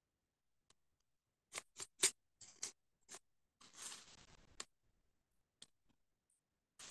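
Craft-knife blade scraping dried ink off coated calligraphy paper, faint: a quick run of short, sharp scratches from about a second and a half in, then one longer scrape of about a second, and a few more scratches near the end. The blade is thinning and cleaning up the edges of the ink strokes.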